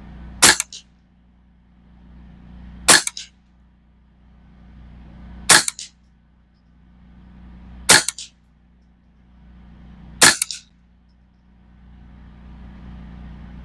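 Five .22 LR shots from a semi-automatic Ruger 10/22 rifle firing RWS Target Rifle ammunition, evenly spaced about two and a half seconds apart. Each sharp crack is followed a moment later by a fainter knock.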